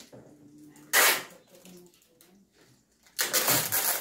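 Packing tape ripped off a handheld tape dispenser: a short rip about a second in, then a longer, rougher one starting near the end.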